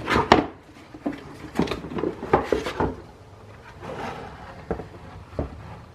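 Irregular clicks, knocks and rattles of a Ridgid shop vac's motor-head housing being handled as its last screw is taken out with a screwdriver and the housing is worked apart.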